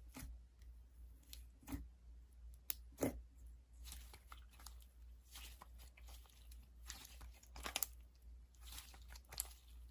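Slime being squeezed and stretched by hand, giving faint, scattered sticky clicks and crackles, with a steady low hum underneath.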